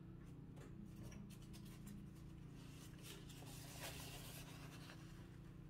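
Faint scratchy rubbing of a watercolour brush, strongest about three to four and a half seconds in, over a low steady hum.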